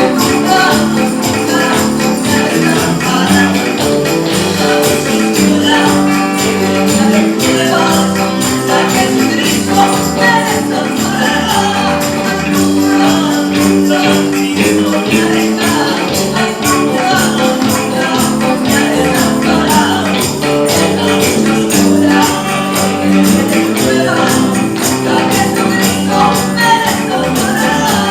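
Band music from a Spanish-language Christian worship song, playing continuously with a steady beat.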